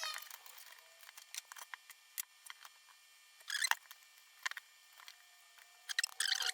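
Light clicks and taps of a PS5 main board and tools being handled and turned over on a workbench, with two short squeaky bursts, one about halfway through and one near the end.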